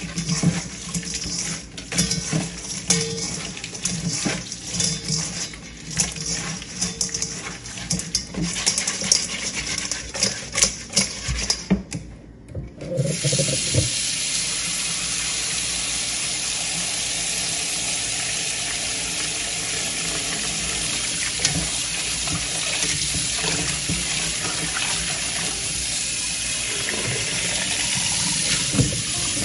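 Hands rubbing raw shell-on shrimp in a stainless steel bowl, with irregular wet squishes and clicks of shells against the metal. About halfway through, a kitchen faucet is turned on and water runs steadily onto the shrimp in the bowl, rinsing them.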